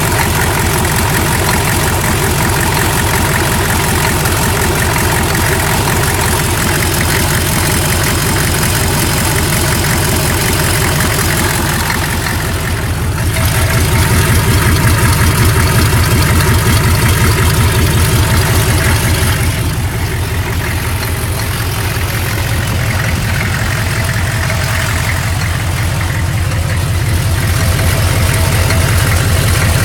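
GM 6.5-litre V8 diesel idling steadily with its exhaust manifolds open and no exhaust pipes fitted, a fast even pulse. The engine has a strange metallic sound that is present only at idle, which the owner cannot explain. It gets louder for several seconds around the middle and again near the end.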